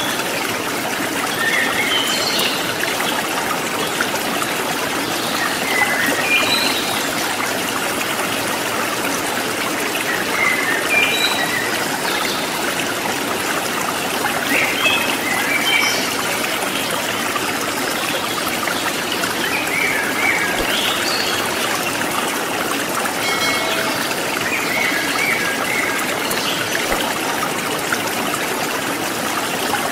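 Steady running, trickling water, with short high chirps now and then.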